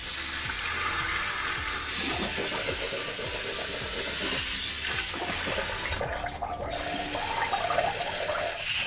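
Water running steadily from a bathroom tap, starting suddenly, with a short break about six seconds in. Near the end a person gargles with water, a wavering bubbling sound over the running water.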